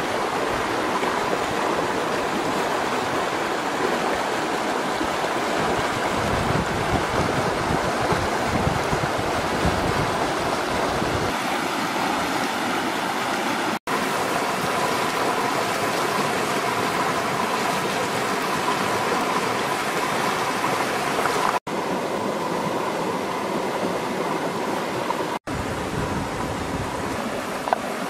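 Rushing stream tumbling over rocks: a steady wash of water noise that cuts out for a split second three times.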